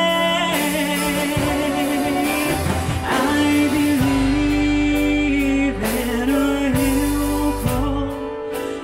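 Woman singing a gospel song into a microphone, holding long notes that waver with vibrato, over acoustic guitar and keyboard accompaniment.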